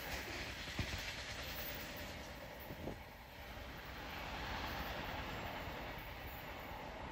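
Freight train of autorack cars rolling away, its wheel and rail noise dying down as the last cars recede, with two short knocks about two seconds apart.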